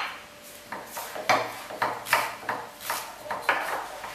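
Kitchen knife slicing through celery stalks and knocking on a wooden cutting board: an uneven run of crisp chops, roughly three a second.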